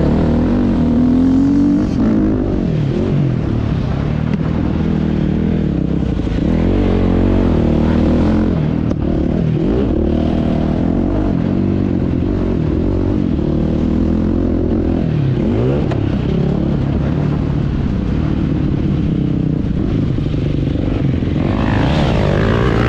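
KTM 250 SX two-stroke motocross engine heard from a camera mounted on the bike, revving up hard and dropping off again and again through the corners and straights of a lap.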